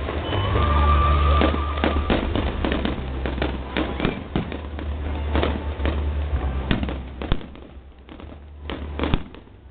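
Fireworks display: a rapid series of bangs and crackles over a low rumble, with a steady whistle in the first two seconds. The bangs thin out about seven seconds in, leaving a few isolated reports near the end.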